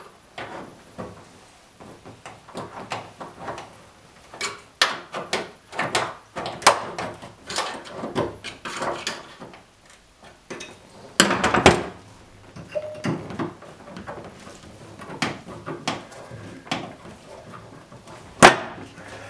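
Thin car-body sheet steel being pried, torn and bent at a cut-open subframe mount, by hand and with a hand tool: irregular metallic clanks, creaks and scrapes. The loudest clatter comes about eleven seconds in, and a sharp knock comes near the end.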